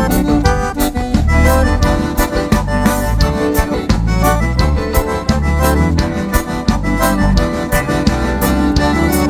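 Accordion-led instrumental break in a gaúcho bugio song, with accordion melody over bass and a steady beat.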